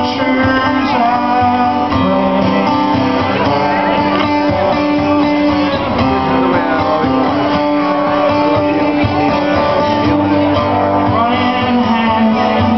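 Live solo acoustic guitar music, played steadily through a concert sound system.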